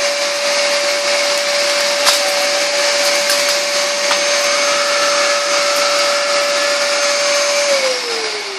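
Numatic cylinder vacuum cleaner running steadily with a turbo brush head on carpet: a loud, even motor whine, with a few sharp ticks midway. Near the end the motor is switched off and its whine falls away as it winds down.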